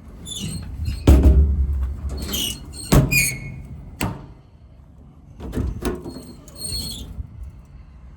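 A metal compartment door on a truck's service body being handled: several sharp metal clunks with squeaks between them.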